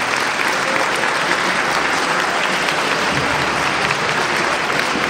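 Audience and panel members applauding, a steady round of clapping.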